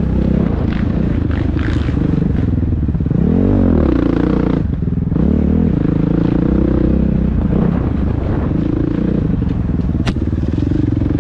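Dirt bike engine revving up and down as the bike is ridden hard over a rough bush trail, with scraping and clattering. There is a sharp knock about ten seconds in.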